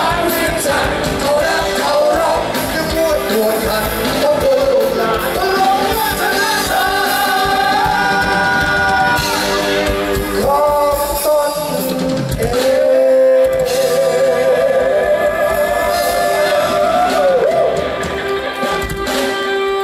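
Music with a singer holding long, wavering notes over band accompaniment.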